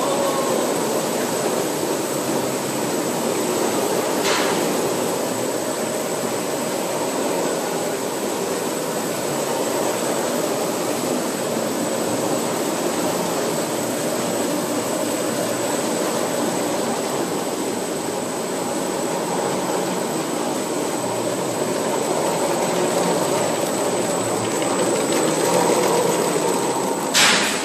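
Plastic-film bag-making machinery running steadily: a vertical gusset-forming unit feeding film into a side-welding machine, a continuous mechanical hum with a constant high whine above it. A sharp click sounds about four seconds in and another near the end.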